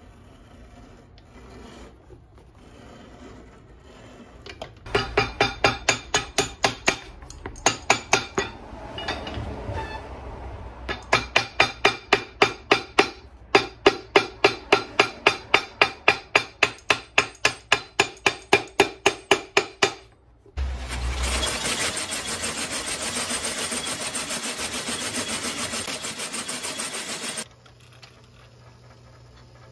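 Cobbler's hammer pounding a leather midsole in quick, even blows, about four a second, in several runs broken by short pauses. Then a shop machine runs with a steady loud noise for about seven seconds and cuts off suddenly.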